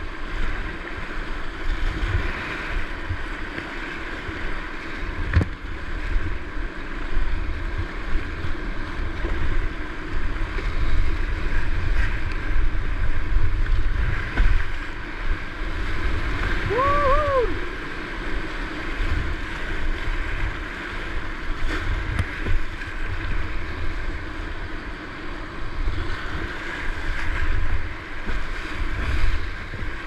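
Whitewater rapids rushing and splashing around a kayak running through them, with wind buffeting the microphone. About halfway through, a short high two-note call rises over the rush.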